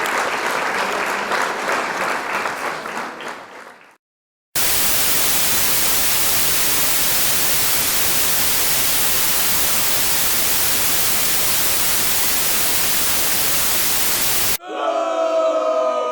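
Applause fading out over the first few seconds, then a brief cut to silence. About ten seconds of steady, even white-noise static follow, like an untuned TV. Near the end it cuts off abruptly into howling, with several gliding, wavering pitches.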